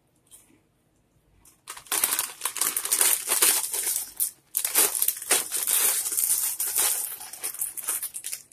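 A crinkly plastic snack bag crumpled and folded shut by hand: two long stretches of crackling, starting about two seconds in, with a brief pause in the middle.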